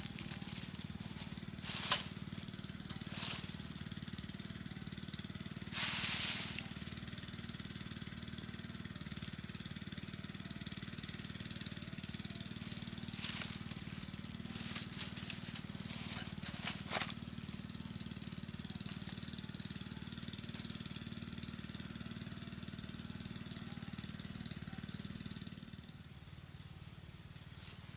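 Scattered crackles and rustles of dry leaf litter, the loudest a longer crunchy rustle about six seconds in, over a steady low hum that drops away near the end.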